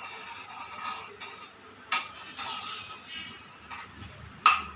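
Ladle stirring thick gravy in a stainless steel pot, swishing and scraping against the pot, with two sharp clinks of the ladle on the metal, the louder one near the end.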